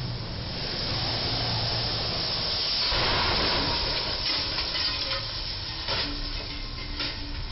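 Tyres hissing on a wet road as a flatbed truck drives past, the hiss swelling to its loudest about three seconds in and then fading as the truck moves away. A few sharp knocks follow, one about six seconds in and another about a second later.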